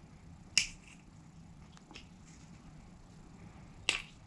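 Sharp small clicks of a steel pick against a metal hydraulic valve fitting while an O-ring and rubber backup ring are pried off it: one loud click about half a second in, another near the end, and faint ticks between.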